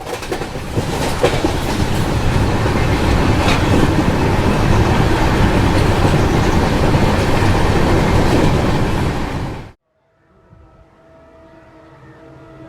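Train rolling past close by at speed, wheels clattering over the rail joints, loud and steady after building up in the first second. It cuts off abruptly about three quarters of the way in, replaced by a much quieter sound with a few steady tones.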